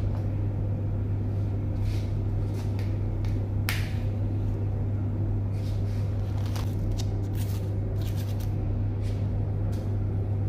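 Paper piping cones rustling and crinkling as they are handled and a nozzle is pushed into one, with a few short crackles, over a steady low hum.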